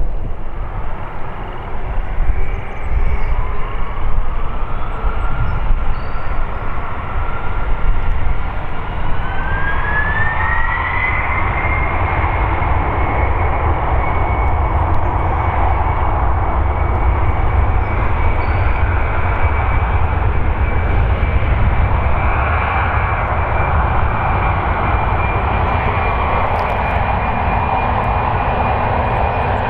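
Boeing 747-400's four GE CF6-80C2 turbofan engines spooling up to takeoff power: a whine rises in pitch over the first ten seconds or so, then holds steady over a deep rumble as the takeoff roll begins.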